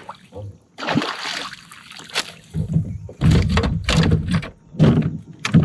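A bass thrashing in a landing net at the water's surface beside a kayak: several irregular splashes and sloshes as the fish is netted and lifted.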